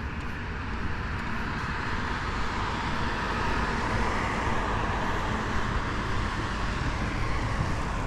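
Road traffic passing a roadside stop: a vehicle goes by, its tyre and engine noise swelling and fading, over a steady low rumble of traffic.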